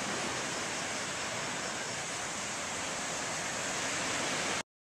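Ocean surf washing on a beach, an even rushing hiss that cuts off suddenly near the end.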